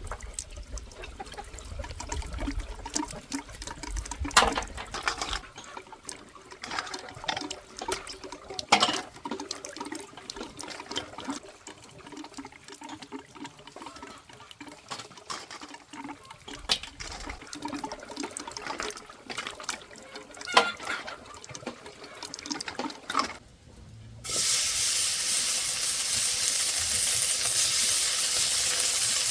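Water splashing and trickling with scattered sharp clicks and knocks, then, about 24 seconds in, a sudden loud, steady sizzle as food goes into a hot pan.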